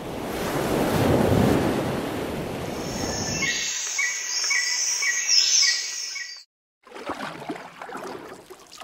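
Surf washing in, then a bird calling with a short chirp repeated about twice a second while the surf fades. Everything cuts off about six and a half seconds in, and a fainter rush of noise follows.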